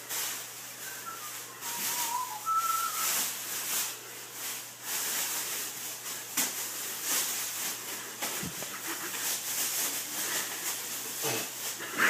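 Black plastic trash bag rustling and crinkling as it is shaken open, bunched and pulled on as a poncho. About a second in, a short faint whistle rises briefly over the rustling.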